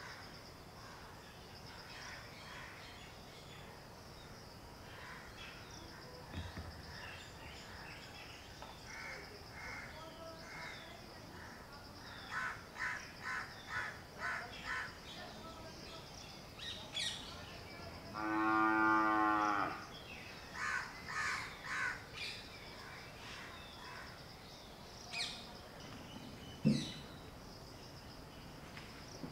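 Outdoor rural ambience: a steady high insect drone, runs of short repeated bird calls typical of crows cawing, and a cow mooing once, a long low call about two-thirds of the way in. A brief sharp sound near the end is the loudest moment.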